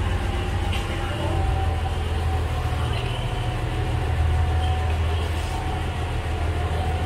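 Cross-river ferry's engine running steadily while moored at the pier: a continuous low rumble with a constant hum above it.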